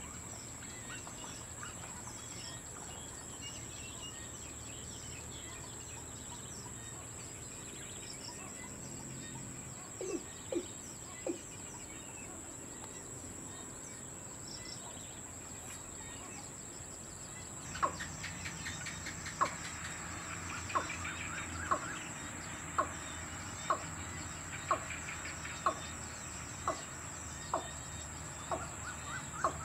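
Male watercock calling: a few low notes about a third of the way in, then from about halfway a long series of short, sharp notes roughly one a second, coming a little faster near the end.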